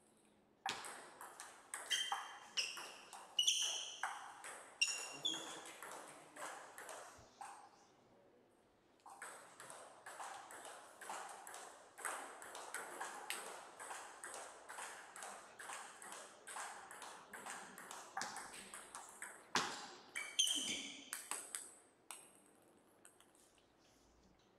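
Table tennis balls clicking sharply off bats and the table in quick runs of rallies, with a brief ringing ping on the hardest hits. The clicks run for several seconds, pause for about a second, then go on again, loudest near the end.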